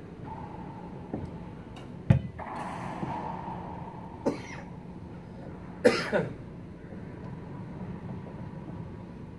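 Racquetball being struck and slamming off the walls of an enclosed court, a handful of sharp echoing cracks. The loudest come about two seconds in and again about six seconds in.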